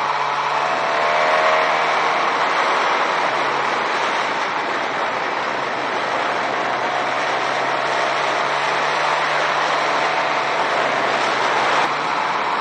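Motorcycle engine running at a steady cruise, its low hum nearly buried under loud wind rush on the onboard camera's microphone.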